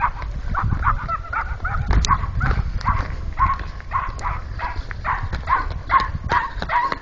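A small dog barking in a rapid string of short, high yaps, about three to four a second.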